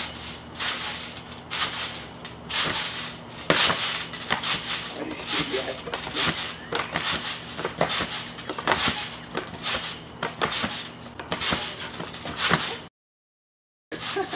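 Bouncing on a trampoline with a skateboard: a run of irregular thumps, knocks and clatters off the mat and board, with voices mixed in. The sound cuts off for about a second near the end.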